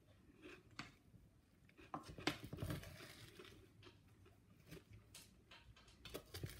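Spoon stirring and folding a sticky mix of melted marshmallow and crisped rice cereal in a stainless steel pot: faint, irregular scraping and crunching.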